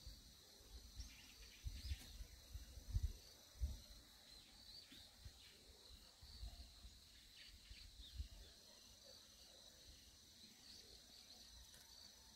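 Faint outdoor ambience: insects chirping steadily in a high, evenly pulsed trill, with scattered short bird chirps. Several low rumbling bumps come in the first few seconds.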